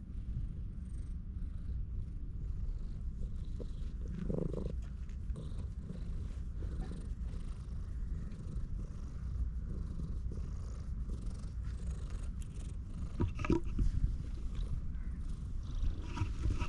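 A tabby-and-white stray cat purring steadily while being stroked, a low continuous purr, with a few light clicks about three-quarters of the way through.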